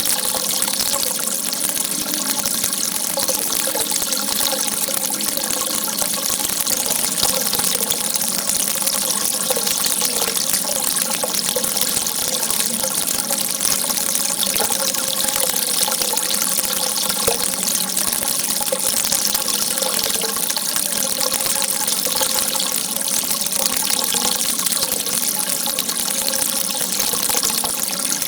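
Water gushing in a steady, unbroken rush, the same level throughout.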